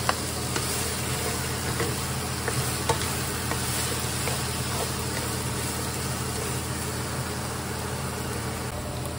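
Diced meat and onions sizzling in a frying pan as they are stirred, with a few light taps of the spatula against the pan. A steady low hum runs underneath.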